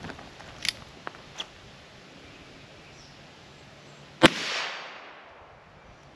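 A single shot from a Ruger Wrangler single-action .22LR revolver about four seconds in, a sharp crack with a short echo trailing off for about half a second. A few faint clicks come before it.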